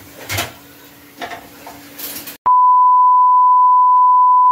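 A few light knocks and clatter, then about two and a half seconds in a loud, steady single-pitched beep cuts in abruptly and holds: the standard test tone that goes with colour bars.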